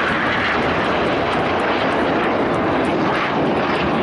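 Jet noise from a formation of BAE Hawk T1 jet trainers, single Adour turbofan each, flying past: a loud, steady rushing sound.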